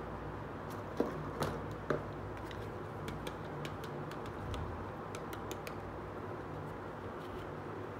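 Hard plastic toy stove being picked up and handled: three knocks in the first two seconds, then a run of light plastic clicks.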